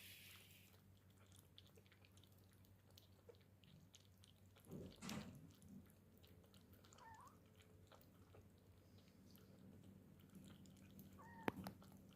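Near-quiet room with a cat giving two short, faint meows, one about seven seconds in and one near the end. There is also a brief scuffling noise about five seconds in.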